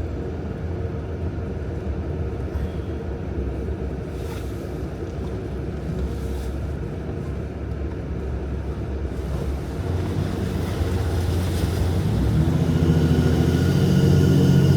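Diesel Jeep Gladiator's engine running with a steady low rumble and wind noise, its pitch rising about three-quarters of the way through as it builds revs.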